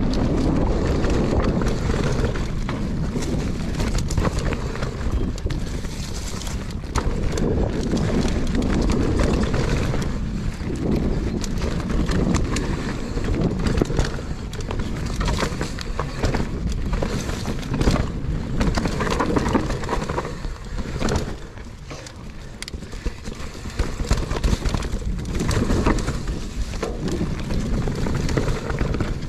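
GT Force Pro mountain bike riding down a dirt singletrack: tyres rolling over dirt and dry leaves, with frequent knocks and rattles from the bike over bumps. Wind buffets the microphone throughout.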